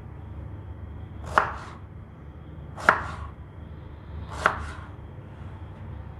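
Kitchen knife chopping eggplant on a plastic cutting board: three sharp chops about a second and a half apart.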